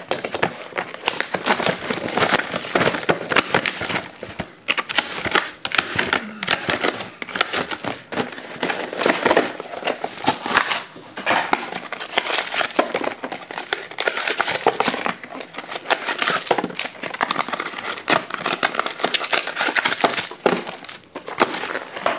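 Plastic shrink wrap being torn off a sealed box of trading cards and the cellophane-wrapped packs handled: continuous crinkling and crackling of plastic film with many sharp crackles.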